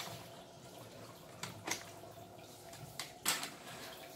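About four short, sharp clicks and light knocks as a duo roller blind's metal headrail and fittings are handled, the loudest a little past three seconds in.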